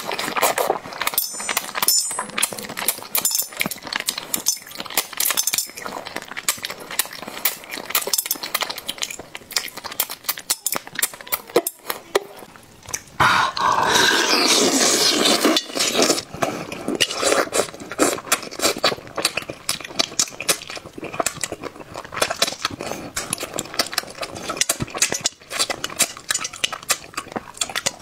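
Close-miked wet eating of a whole braised fish in sauce: chewing, lip smacks and small clicks, with a loud slurp lasting about three seconds around the middle as he sucks the flesh off the fish.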